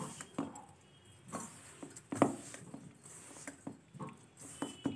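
A hand squeezing and mixing ground flaxseed powder with wet jaggery in a glass bowl: a soft, uneven rustle broken by a few short knocks, the loudest about two seconds in.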